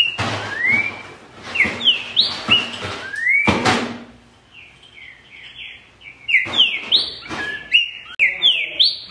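Green-winged saltator (trinca-ferro) singing loud whistled phrases of notes that slide up and down, in three bursts with a quieter pause in the middle. A brief thump about three and a half seconds in.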